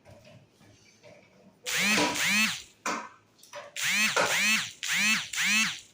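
Hand crank of a manual hospital bed being turned to lower the bed. Its gears whir in quick strokes that rise and fall in pitch, about two a second, starting a little under two seconds in, with short pauses between runs.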